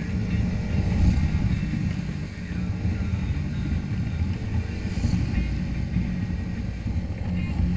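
Haojue Chopper 150's single-cylinder engine and exhaust running steadily while riding, heard from the rider's helmet with some wind on the microphone.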